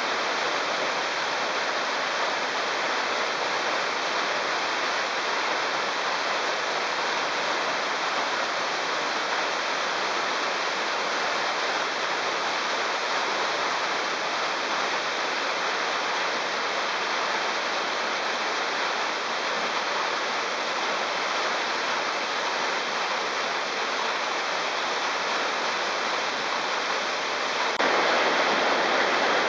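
Canyon waterfall pouring down a rock face into a pool: a steady rush of falling water that steps up a little louder near the end.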